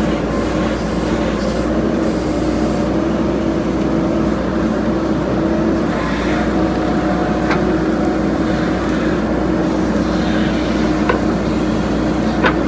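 JCB 3DX backhoe loader's diesel engine running steadily under work, with a few light knocks in the second half.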